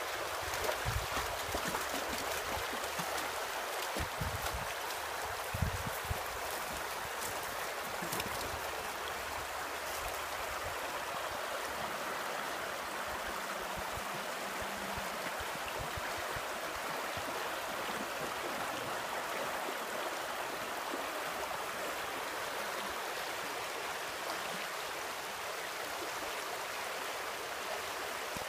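Shallow creek rippling over a rocky bed, a steady rush of running water. In the first several seconds, low rumbles of wind on the microphone and a few thumps come over it.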